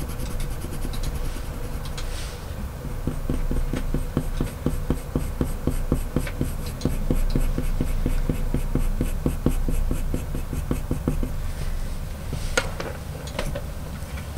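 Coloured pencil scratching on paper in quick, short, repeated strokes, several a second, as fur lines are hatched in; the strokes thin out and stop near the end.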